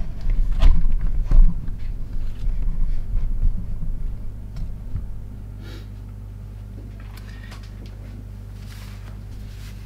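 Handling knocks and rustling from the camera being moved and set down for about five seconds, then a steady low electrical hum.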